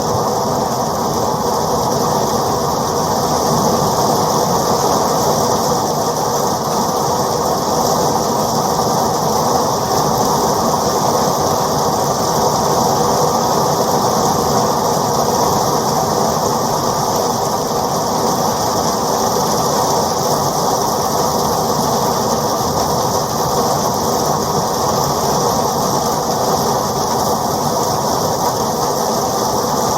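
Steady rain, a dense, even rush with most of its weight low down and no breaks.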